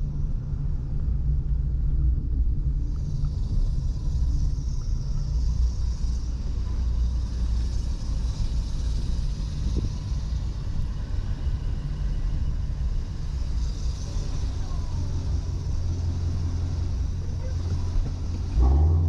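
A 2019 Shelby GT350's 5.2-litre flat-plane-crank V8 running steadily on the move, a low drone. A steady hiss of road noise comes in about three seconds in. There is a brief louder surge of the engine near the end.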